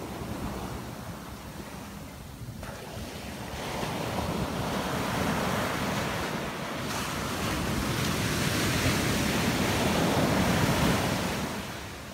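Ocean surf breaking and washing up onto a sandy beach. It swells a few seconds in and eases off near the end as the wave runs out.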